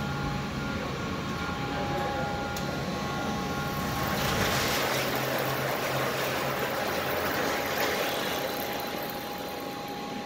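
Automatic pallet changer of a Mitsubishi ML3015LVP Plus II CNC laser cutter shuttling its pallets, over a steady machine hum with a constant whine. About four seconds in, a louder, noisier mechanical run begins as the pallet holding the cut sheet travels out, easing off near the end.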